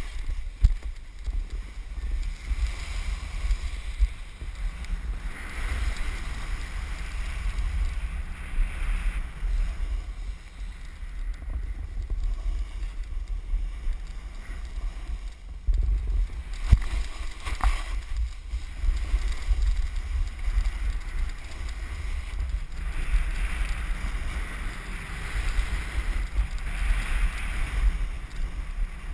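Wind rumbling and buffeting across an action camera's microphone while snowboarding downhill, with the hiss and scrape of a snowboard's edges carving through snow swelling and fading with the turns. A sharp knock comes about halfway through.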